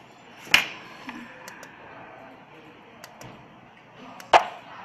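Two sharp clicks about four seconds apart, with a few faint ticks between, as the small push buttons on handheld walkie-talkie module demo boards are pressed and the circuit boards handled.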